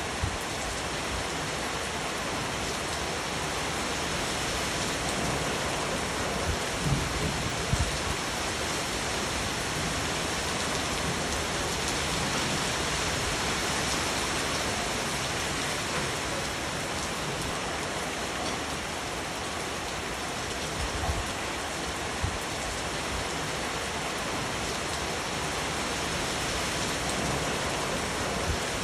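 Steady rain falling and pattering on a surface, with a few short low thuds about a quarter of the way in and again past the middle.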